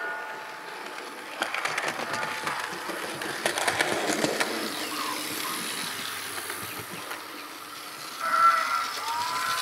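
Hornby OO gauge LMS Stanier Class 4P model locomotive running along the track, its wheels clicking rapidly over the rail joints from about a second and a half in as it passes close. A brief high whistling tone follows near the end.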